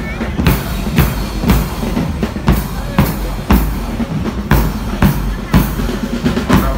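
Parade marching band playing a march, its drums beating a steady rhythm of about two strong beats a second.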